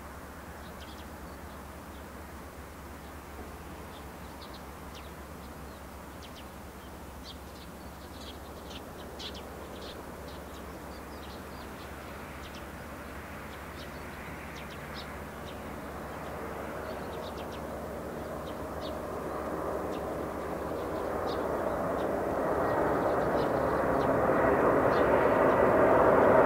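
Boeing 747-400 freighter on final approach, its engine noise faint at first, then growing steadily louder over the second half as it nears. Short high chirps are scattered through the background.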